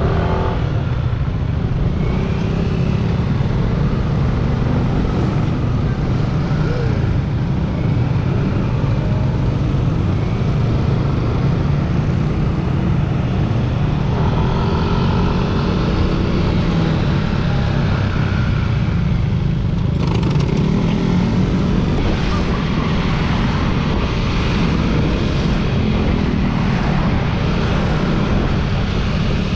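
Wind buffeting the microphone while riding a Yamaha Sniper 150, with its single-cylinder four-stroke engine running underneath. The engine's pitch rises and falls as the speed changes.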